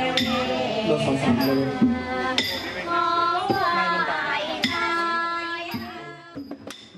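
A voice singing long, bending, held notes over musical accompaniment with clinking percussion, in the style of Thai lakhon chatri music. It grows quieter near the end, leaving sharp percussion clicks.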